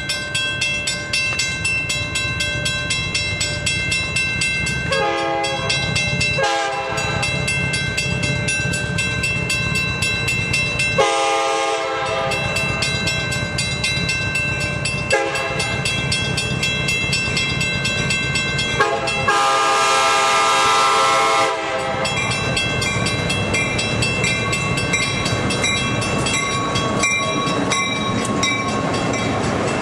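Grade-crossing bell ringing steadily while an approaching diesel locomotive sounds its horn several times for the crossing, the last blast the longest and loudest. Near the end the rush of the train's wheels and engine grows as it comes alongside.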